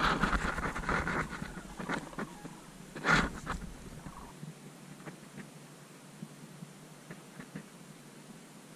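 Rustling and knocking of fabric and a mesh screen as a hunter shifts inside a layout blind, with one louder knock about three seconds in. After about four seconds it fades to faint background.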